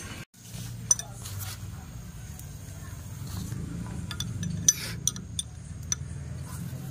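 Metal wrench clinking and scraping against an Isuzu 4JX1's oil rail pressure sensor and pump body as it is worked on, over a steady low hum. There are a few sharp clinks about a second in and a busier run of them between about four and six seconds.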